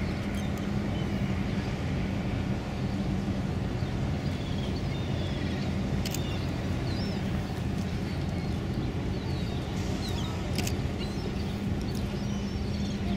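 Steady low diesel drone of ships' engines on the river, with gulls calling in short chirps over it and a couple of sharp clicks.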